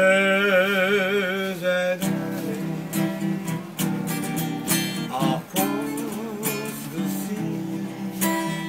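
Acoustic guitar being strummed, with a voice singing along in long wavering held notes, strongest over the first two seconds and again briefly midway.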